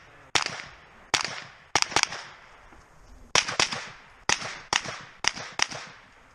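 A string of about ten rifle shots fired in quick succession, some close together in pairs, each a sharp crack with a short echo.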